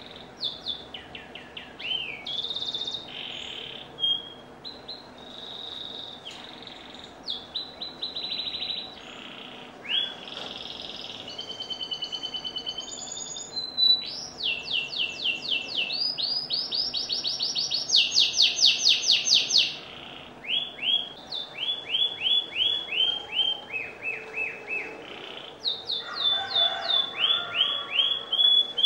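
Domestic canary singing a long, varied song: phrase after phrase of rapidly repeated falling notes, run in quick trills, with short held whistles and buzzy rolls between them.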